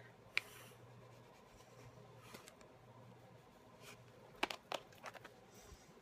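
Faint scrubbing of a rubber stamp rubbed back and forth on a stamp-cleaning scrubber pad, with a sharp click about half a second in and a few clicks and knocks near the end.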